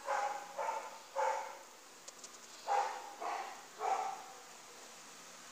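A dog barking: three barks about half a second apart, then a pause, then three more.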